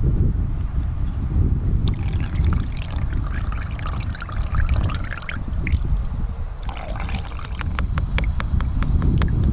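Wind rumbling on the microphone, with wet, liquid-sounding handling in the middle and a run of quick ticks, about four a second, near the end.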